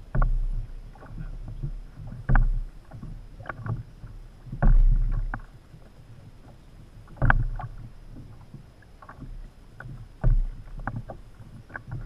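Small waves slapping and splashing against the hull of a Hobie Adventure Island sailing kayak in irregular hits every second or two, over a low wind rumble on the microphone.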